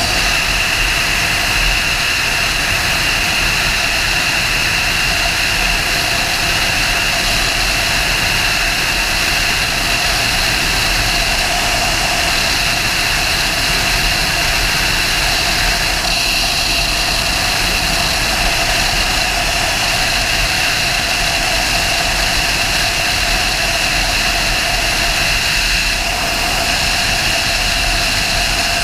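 Sportbike engine running at a steady cruise under a constant rush of wind on the microphone, with a steady engine whine and no gear changes or revving.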